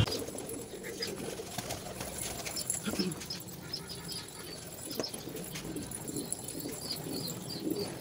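Domestic pigeons cooing softly at the loft, with short high chirps and a few faint clicks or wing flaps among them.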